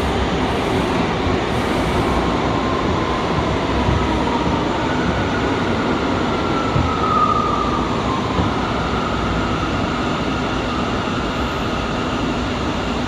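A Bombardier R179 subway car under way on the rails, with the whine of its MITRAC IGBT-VVVF AC traction drive rising and then falling in pitch around the middle, over steady wheel and rail noise and a few low thumps. The train is drawing into a station.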